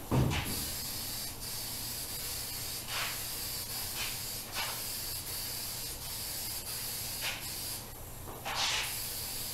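Aerosol can of black spray paint spraying a guide coat onto bare sheet metal: a long steady hiss that stops briefly near the end, then starts again. A thump right at the start.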